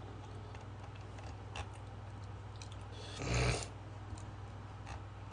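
Steady low hum with a few faint computer mouse clicks. About three seconds in, a short, loud exhale close to the microphone.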